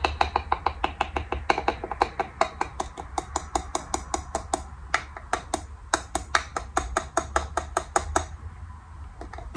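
Quick, repeated light tapping of a plastic powder-jar lid against the jar, several taps a second, knocking loose finishing powder out of the lid back into the jar; the tapping pauses briefly near the end.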